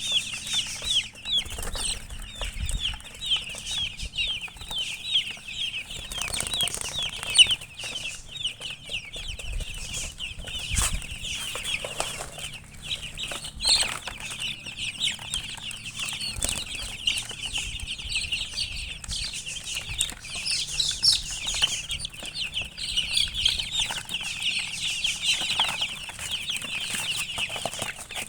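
Baby chicks peeping constantly: many short, high-pitched, falling chirps overlapping one another, with a few brief knocks.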